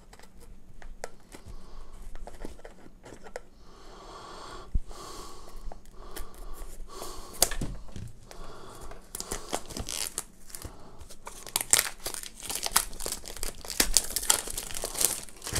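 Thick plastic shrink-wrap film being slit with a knife and peeled off a small cardboard box: scattered scratching and clicks, then crinkling and tearing that grows louder and denser in the second half.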